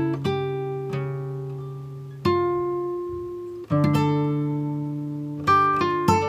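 Background music: a plucked guitar playing slow chords and single notes, each struck and left to ring out, about five strikes in all.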